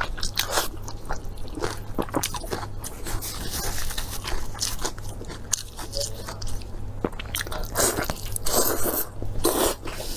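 Close-miked eating: irregular crunchy bites and chewing, wet and crackling, with short pauses between mouthfuls.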